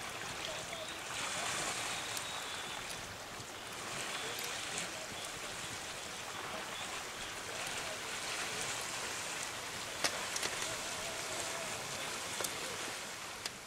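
Blueberry jam boiling in a metal pail over a campfire: a steady bubbling hiss, with a few sharp cracks about ten seconds in and once more near the end.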